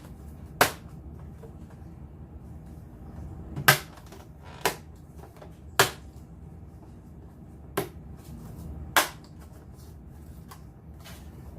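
Hard plastic parts of a Flambeau Tuff Crate tray snapping into place: six sharp clicks at irregular intervals.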